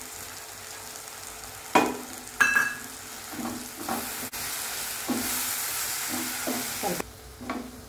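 Gooseberry and grated-coconut masala frying in oil in a nonstick wok, sizzling while a wooden spatula stirs and scrapes it in repeated strokes. There are two sharp knocks about two seconds in. The sizzle is loudest for a couple of seconds near the end, then drops.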